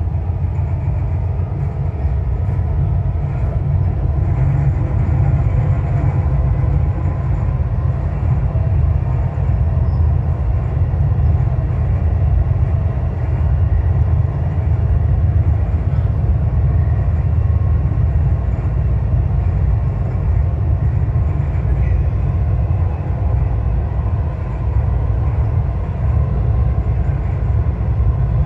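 Dubai Metro train running along an elevated track, heard from inside the carriage: a steady low rumble of wheels and running gear that does not change.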